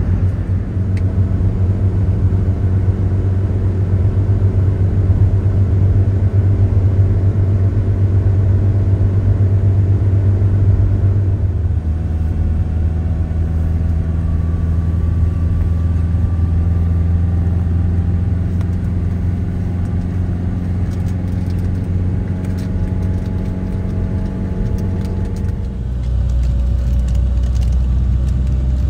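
A car running on the road: a steady low drone of engine and road noise whose pitch shifts about twelve seconds in and drops lower near the end.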